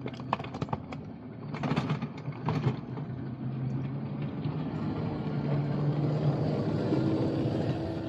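Small-scale railroad train running along the track: a steady motor hum that builds gradually, with scattered clicks and rattles throughout.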